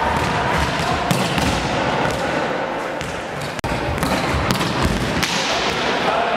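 Volleyballs being struck and bouncing on a sports-hall floor: repeated thuds and slaps over a constant din of players moving and distant voices in the hall.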